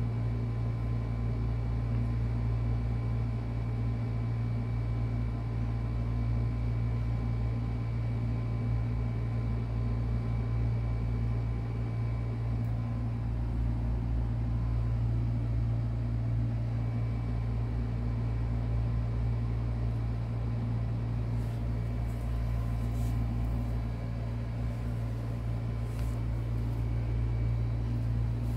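A steady low machine hum with a faint thin whine above it, unchanging throughout, and a few faint clicks in the last several seconds.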